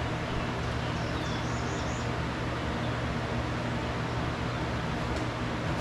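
Steady low mechanical hum with a faint haze of background noise. A few faint high bird chirps come about a second in.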